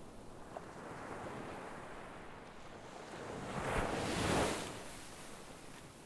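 A steady rushing noise like surf or moving water, swelling louder for about a second midway, then settling back.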